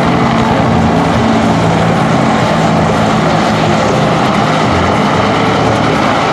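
UH-1 Huey and AH-1 Cobra helicopters flying, their rotors and turbine engines making a loud, steady noise.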